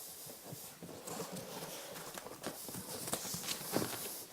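Cardboard carton being handled around a packed clock hood: scattered light knocks and rustling of cardboard and packing paper.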